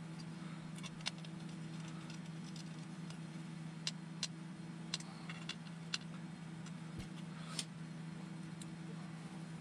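About ten light, sharp clicks and taps of small hard parts being handled during RC car assembly, scattered irregularly over a steady low hum.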